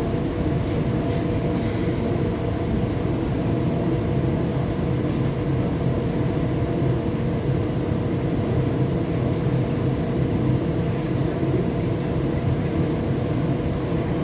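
EP2D electric train running at speed: a steady, even rumble with a constant hum.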